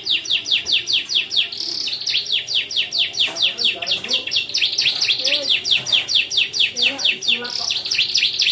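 Canary singing a fast, unbroken string of downward-sweeping chirps, about six a second, phrases copied from the bar-winged prinia (ciblek).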